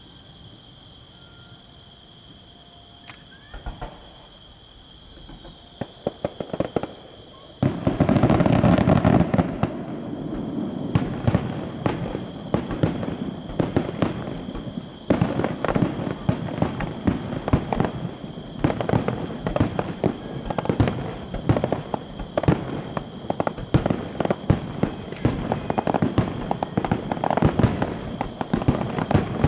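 Aerial fireworks going off: a few scattered bangs at first, then from about eight seconds in a sudden, loud, dense run of crackling bursts and bangs that keeps going.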